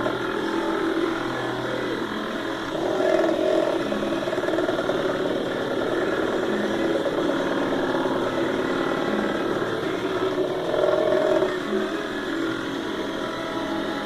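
CNC machine's stepper motors whining as the axes move, several steady tones that change pitch in steps as the moves change speed, louder about three seconds in and again near eleven seconds.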